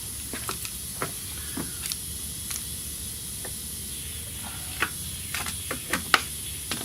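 Scattered light clicks and taps of hands and small parts being handled in an engine bay, more frequent in the second half, over a steady hiss.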